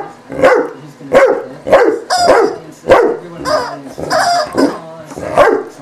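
A rubber chicken squeaky toy squawks again and again, about two loud squeaks a second, as a Leonberger chews and squeezes it in its jaws.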